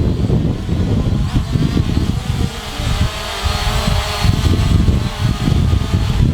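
Strong wind buffeting the microphone with a heavy rumble, and through the middle the whine of an SG906 quadcopter drone's motors, wavering up and down in pitch.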